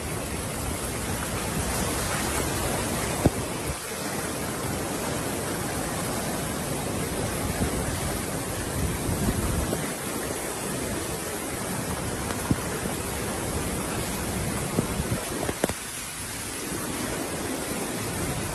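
Flash-flood water rushing down a street in a steady, even rush of water noise, with a few brief knocks.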